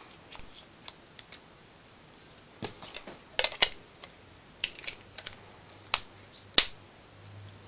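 Sharp plastic clicks and snaps from handling a ZTE Racer 2 phone's battery and snap-on back cover, about a dozen irregular clicks, the loudest about three and a half and six and a half seconds in.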